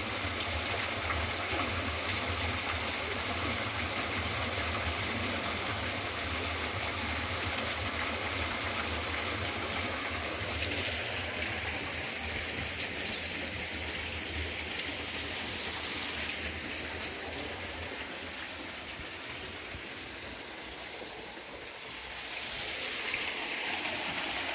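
A small waterfall splashing into a pool, with the steady rush of a stream running through a wooded ravine. The water sound fades somewhat past the middle and swells again near the end.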